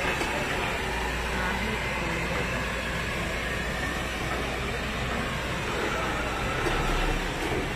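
Heavy flatbed truck passing close by: a steady engine rumble and road noise, with faint voices from onlookers. The low rumble gets louder near the end.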